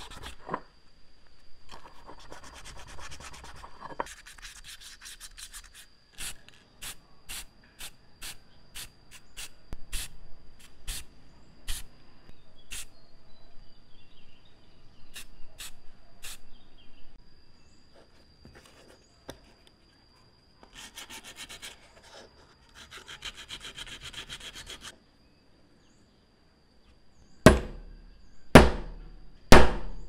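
Hand-sanding of a coffee grinder's metal bowl: rubbing strokes with scattered clicks and taps, later two short hissing stretches. Near the end, three loud hammer blows about a second apart on a punch held against a small wooden block.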